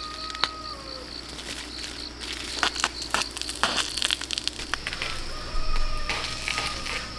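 A rooster crowing twice, once at the start and again near the end, each crow a held call that drops at its close. Scattered clicks and rustling come between the crows.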